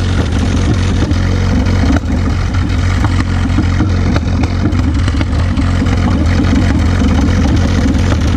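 McCormick-Deering Super M tractor's four-cylinder gasoline engine running steadily while the tractor drives down the road, with a deep, even exhaust note.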